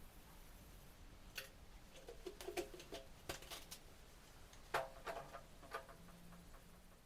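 Faint, irregular clicks and clinks of kitchenware being handled. There are a dozen or so light strikes, some with a short ring, bunched about halfway through and again near the end.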